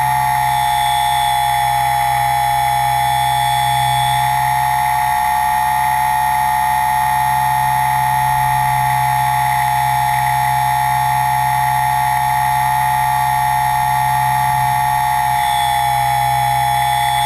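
Motor and propellers of a radio-controlled aircraft, heard from the camera mounted on it: a loud, steady whine that holds one pitch at constant throttle.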